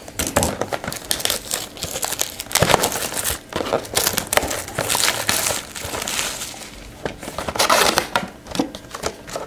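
Crinkling and tearing of plastic wrap and rustling packaging as a sealed box of trading cards is opened by hand, in irregular crackly bursts.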